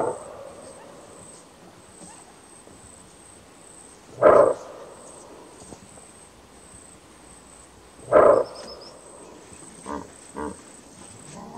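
Greater kudu barking its alarm call: three loud, short barks about four seconds apart, over a steady high insect drone. Two fainter short sounds follow near the end.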